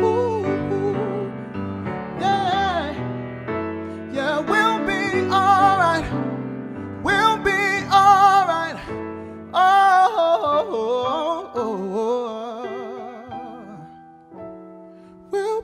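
R&B song: a male singer's wordless vocal runs with heavy vibrato over sustained keyboard chords, fading out about a second before the end.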